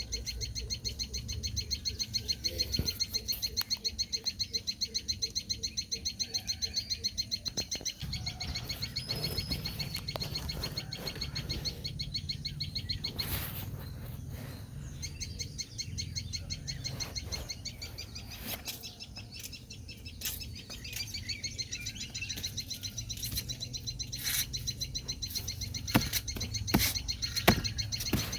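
Sunbird chicks chirping, high-pitched and rapid in a steady stream, with a few sharp clicks near the end.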